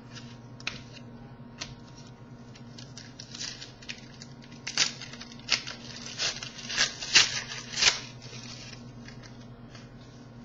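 A trading card pack being torn open and the cards handled: a run of short rustling and tearing strokes, busiest in the middle, over a faint steady electrical hum.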